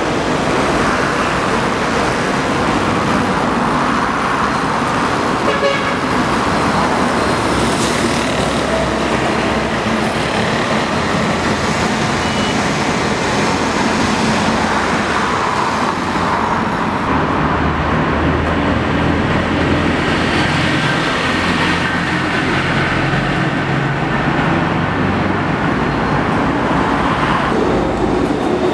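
Steady urban road traffic noise, vehicles running and passing, with a low engine hum coming in about halfway through.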